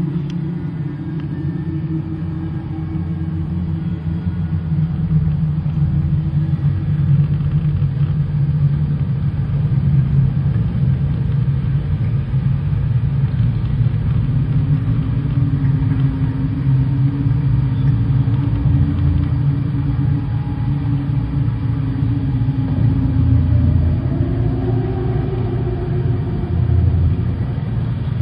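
Low rumbling drone of a dance performance's soundtrack, with slow held tones above it. It grows louder a few seconds in, and near the end one tone slides up and back down.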